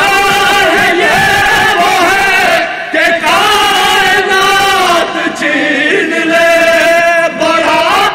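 A group of men chanting a noha, an Urdu Shia lament, in unison without instruments, with a lead voice and chorus holding long notes.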